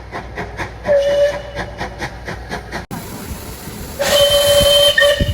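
Steam locomotive whistle: a short blast about a second in over a fast, even beat, then a louder blast of about a second near the end, over steady hiss.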